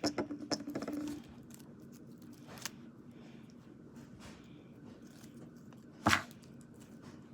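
Small clicks and rustles from slime toys and their plastic packaging being handled, a quick run of them in the first second, a single tick a little later, and one louder crackle about six seconds in.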